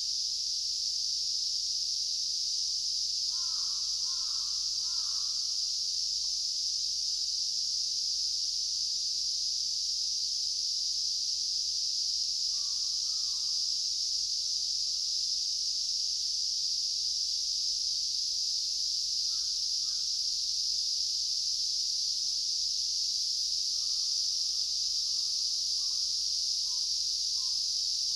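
A steady, high-pitched insect chorus with a bird calling over it a few times: three quick notes about three seconds in, short calls around the middle, and a longer trailing call near the end.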